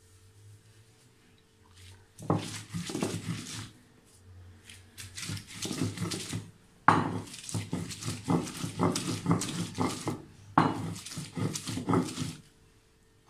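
Stone roller (batta) rubbed back and forth over a flat grinding stone (sil), crushing a wet paste of mint and coriander: runs of quick rasping, scraping strokes starting about two seconds in, with short pauses between runs.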